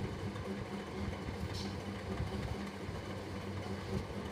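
Gulab jamun dough balls deep-frying in hot oil: a steady bubbling sizzle over a low steady hum.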